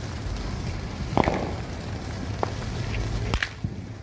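Small fireworks or firecrackers going off outdoors: a few sharp, irregularly spaced pops over a steady low rumble, the first about a second in.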